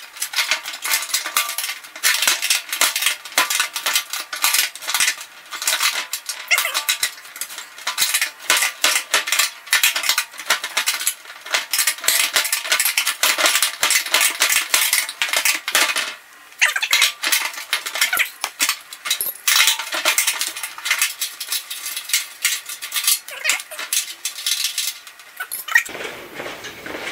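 Wrenches on a return-line fitting threaded into an empty steel fuel tank: rapid, continuous metallic clicking and clinking as the fitting is tightened. It stops abruptly about a second before the end.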